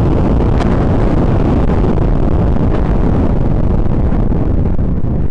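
Explosive demolition of a tall concrete silo: a loud, steady, deep rumble as the charges go off and the structure begins to collapse, with two faint sharp cracks, one about half a second in and one near the three-second mark.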